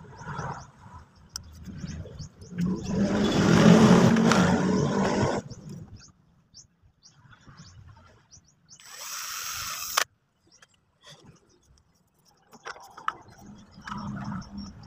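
Cordless drill boring through an orange PVC pipe housing in two runs: a loud one about three seconds long, then a shorter, hissier one of about a second that cuts off abruptly. Faint bird chirps in the background.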